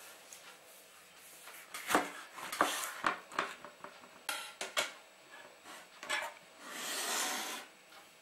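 A knife and a lemon handled on a wooden cutting board as the lemon is cut in half: a run of light knocks and taps, then a brief rubbing swish near the end.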